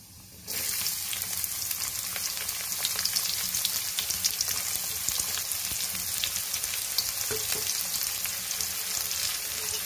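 Chopped onions dropped into hot oil with spluttered cumin seeds in a kadai: a sudden sizzle about half a second in, then steady frying with many small crackles.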